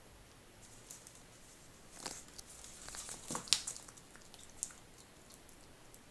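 Scattered sharp clicks and scratches of a Chinese water dragon's claws on a hardwood floor as it lunges at and seizes a small snake, the loudest about three and a half seconds in.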